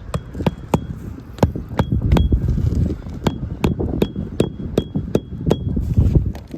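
Hammer driving roofing nails by hand: about a dozen sharp metal strikes in three quick runs, many with a brief high ring. Low wind rumble underneath.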